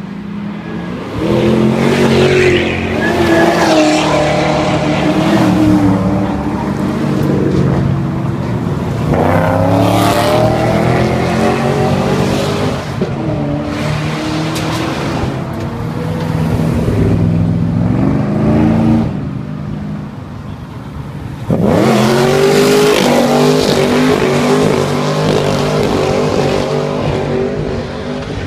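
Holden VE Commodore engine revving hard while the car slides with its rear tyres spinning, the revs rising and falling again and again. The revs drop briefly about twenty seconds in, then climb sharply again.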